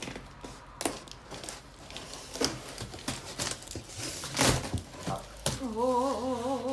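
Large cardboard box being cut and opened by hand: a knife slicing packing tape and cardboard, with scraping, rustling and crinkling, loudest in a rip a little past halfway. Near the end a voice hums a wavering tune.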